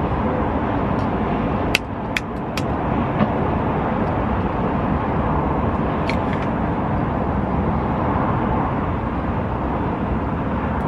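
Steady wind noise buffeting the microphone at an open high-rise window ledge, with a few sharp clicks about two seconds in and one more near the middle.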